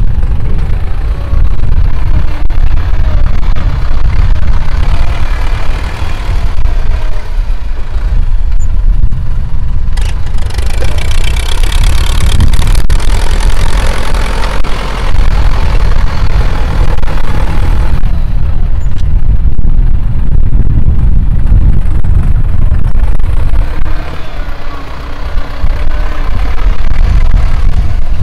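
Ford 6610 tractor's four-cylinder diesel engine working hard through a loud open exhaust, so loud the recording distorts. Its note brightens and strengthens for several seconds in the middle, and it eases briefly a few seconds before the end.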